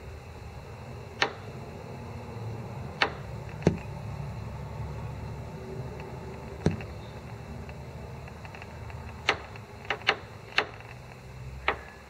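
Eurasian nuthatch hammering with its bill: about nine sharp knocks at irregular intervals, several in quick succession about ten seconds in, over a low steady hum.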